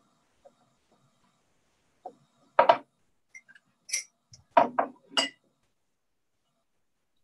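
Glass jars clinking and knocking against each other and the wooden board as they are handled: a handful of short, sharp clinks, the loudest a little over two and a half seconds in, then a quick cluster of several more from about four to five and a half seconds.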